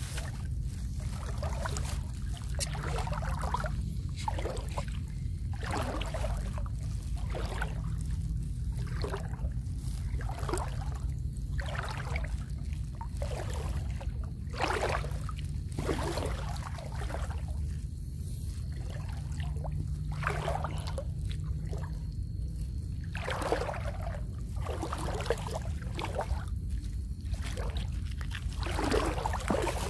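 Shallow water splashing and sloshing over and over, a surge every second or two, over a steady low hum.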